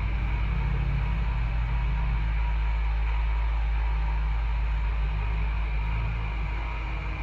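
Engine of an off-road vehicle running steadily at low speed, a low, even hum heard from inside its own cabin.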